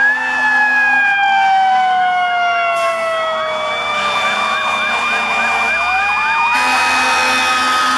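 Fire truck sirens from several departing rigs sounding together. A mechanical siren winds down slowly and then starts winding up again, while an electronic siren wails and switches to a fast yelp. About two-thirds of the way through, a louder steady tone cuts in.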